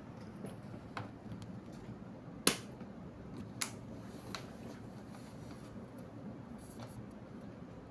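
A few scattered sharp clicks and taps from handling a laptop's plastic case during disassembly, the loudest about two and a half seconds in.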